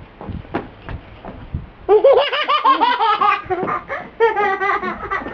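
A small child laughing in two bouts of quick, high-pitched giggles: a loud run about two seconds in and a shorter one near the end.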